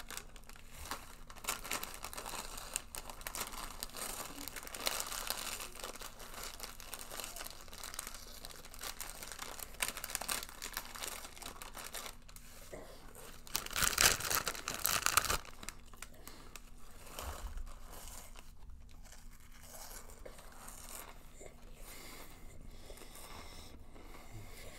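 A Funyuns snack bag crinkling as it is tipped up and shaken into the mouth, with crunching of the onion rings being eaten. The crinkling is loudest in a burst a little past the middle and quieter toward the end.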